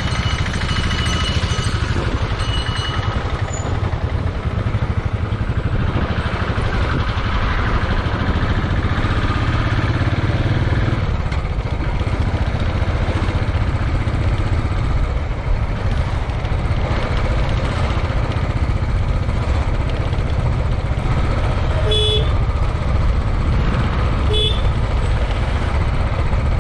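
Motorcycle riding along with a steady low engine and road rumble; a vehicle horn beeps briefly twice near the end.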